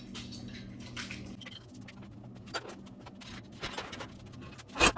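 Light scattered metallic clicks and rattles from handling tools and hardware around an engine on an engine stand, with one loud knock just before the end, over a steady low hum.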